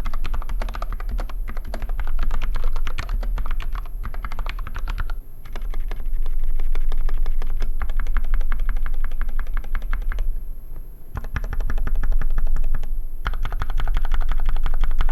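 Fast, continuous typing on a custom mechanical keyboard: an Epomaker GK68XS with an acrylic case, lubed Gateron Black linear switches and Tai Hao rubber keycaps. Keystrokes come in quick runs, with short breaks about five and ten seconds in, over a steady low hum.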